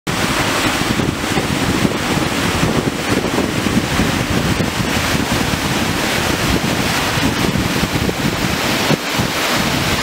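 Steady rush of a shallow mountain stream running over pebbles and stones, with wind rumbling on the microphone.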